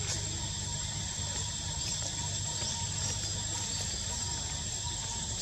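Steady outdoor ambience: a continuous high insect drone over a low rumble, with a few faint high chirps about two to three seconds in.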